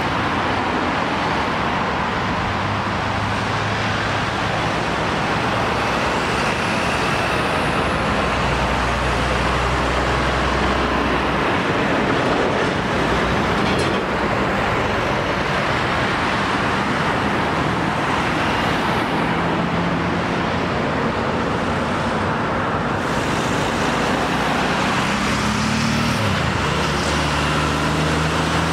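Steady road traffic with cars, vans and articulated lorries driving round a roundabout: tyre noise and the low hum of diesel engines coming and going. Near the end a tanker lorry's diesel engine pulls past close by, its note rising and growing louder.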